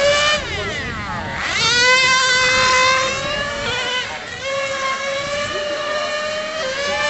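Serpent 720 1:10 nitro touring car's small two-stroke glow engine screaming at high revs. Its pitch falls as it slows about half a second in, climbs sharply back up at about a second and a half, then dips and rises again around four seconds in.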